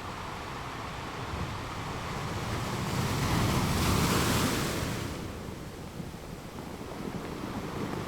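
Ocean waves breaking on a rocky shore, a wash of surf that swells to a single crash about four seconds in and then drains away.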